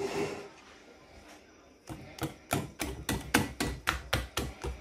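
Wire whisk beating pancake batter in a ceramic bowl, its wires clicking against the bowl's side. A short swish, then from about two seconds in a fast, regular run of about five strokes a second.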